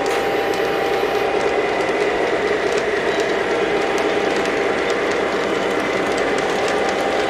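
Model train running on layout track: a steady motor and gear hum with several held tones, and faint scattered clicks from the wheels on the rails.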